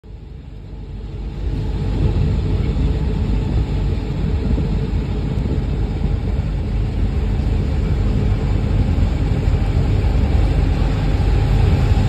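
Steady low rumble of a Rigi rack-railway train running, heard from inside the carriage. It swells over the first two seconds, then holds.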